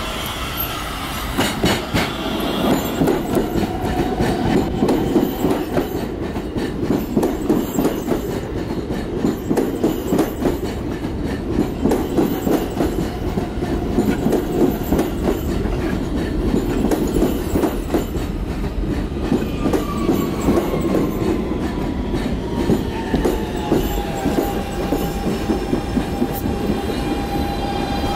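An R160B Siemens subway train pulls into the station and rolls past, its wheels rumbling and clacking over the rail joints. A thin whine falls in pitch as the train slows toward a stop.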